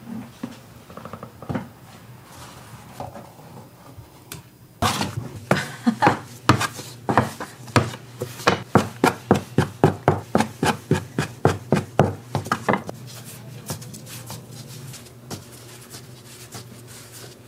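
Quick, even run of sharp chopping knocks on a wooden board, about three a second for some eight seconds, starting about five seconds in, with quieter handling knocks before and after.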